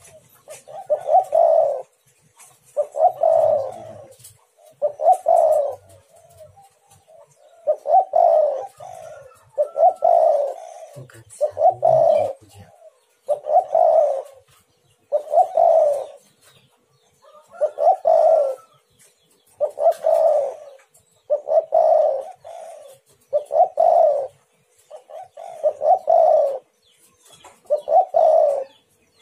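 Spotted dove (tekukur) cooing: a low coo phrase of about a second, repeated steadily about every two seconds.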